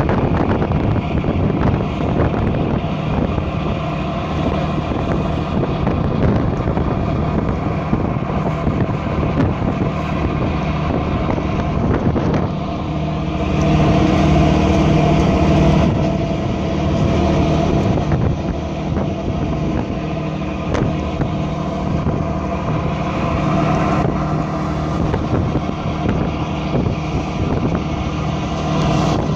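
Tour boat's engine droning steadily underway, with wind buffeting the microphone.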